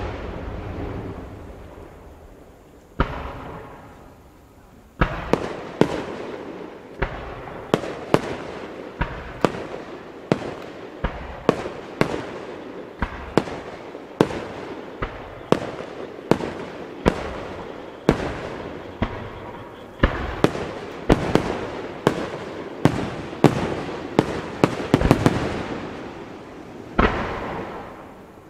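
Aerial firework shells bursting: a deep bang dying away, then from about five seconds in a rapid run of sharp bangs, one or two a second, with crackling between them. Near the end there is a swelling whoosh as more shells go up.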